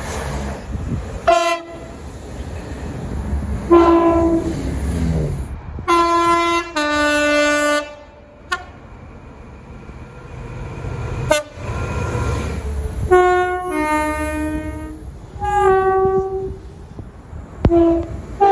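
British train horns sounding a series of short blasts, often two notes, high then low, over the low rumble of passing trains. The recording jumps abruptly from one train to the next several times.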